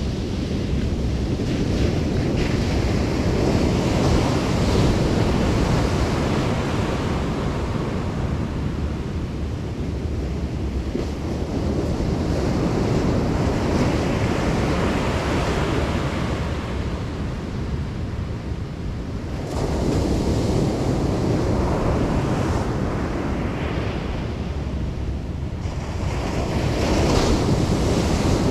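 Ocean surf washing onto the beach, swelling and easing every six or seven seconds, with wind buffeting the microphone.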